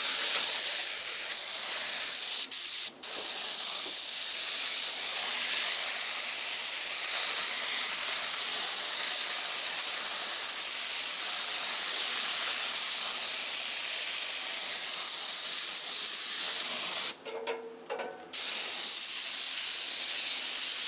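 Central Pneumatic 20 oz HVLP gravity-feed spray gun hissing steadily as it sprays acrylic deck stain. It cuts out twice briefly a couple of seconds in, and again for just over a second later on.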